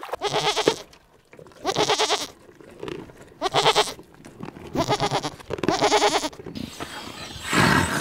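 Barbary sheep bleating: five quavering bleats about a second apart. Near the end a leopard's roar begins.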